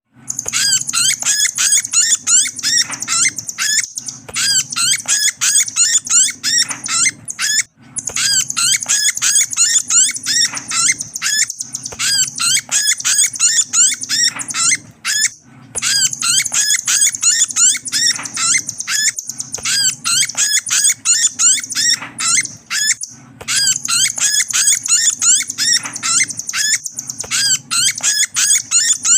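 Nuthatch ('rambatan paruh putih') lure call, played as a recording: fast, high chattering runs of short notes, broken by brief pauses about every four seconds.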